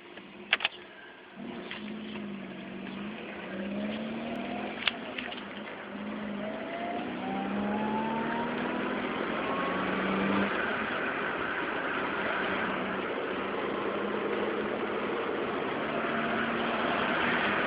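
Honda Hawk ('Bab') motorcycle engine running with an abnormal noise that the owner fears is at a terminal stage. The engine note rises and falls, and a rising whine climbs from about six seconds in until it stops at about ten seconds. There are two sharp clicks, one near the start and one about five seconds in.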